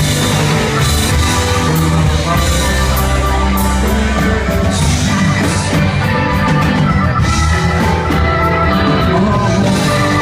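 Live rock band playing loudly: drums with cymbals, bass and guitar in a full, sustained passage of the song.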